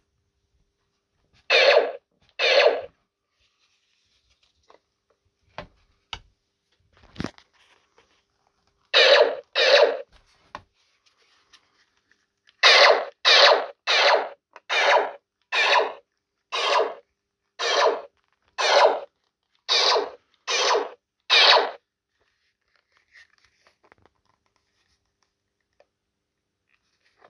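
Electronic blaster-shot sound effects from a Colonial Blaster prop replica's built-in speaker, one short burst per trigger pull. Two shots, then two more, then a run of about a dozen shots roughly one a second, with a few faint clicks in the pause before.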